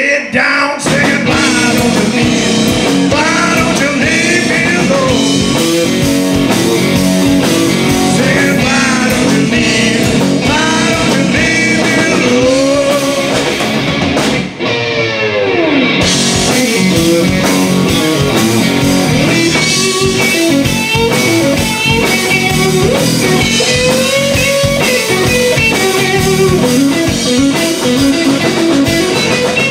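Live blues-rock band playing: a Telecaster-style electric guitar plays bending lead lines over bass guitar and drums, with one long falling bend about halfway through.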